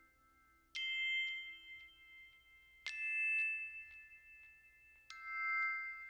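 Background music: three bell-like chime strikes about two seconds apart, each ringing on with a few clear high tones.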